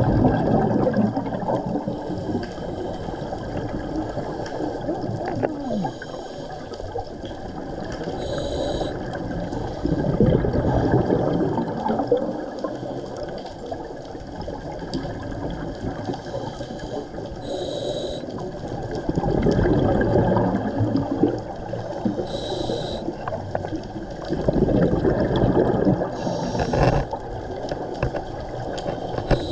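A scuba diver breathing through a regulator underwater: short hisses as air is drawn in, and long bubbling rushes as each breath is let out, repeating several times.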